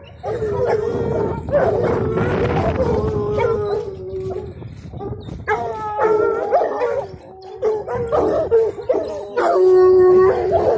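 A pack of Petit Bleu de Gascogne scent hounds baying, several voices overlapping in long drawn-out howling notes, with one long held note near the end. This is hounds giving tongue while working a scent on a boar hunt.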